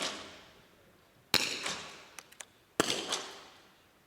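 Two .22 rimfire smallbore rifle shots about a second and a half apart, each a sharp crack followed by a long echo dying away in the hall.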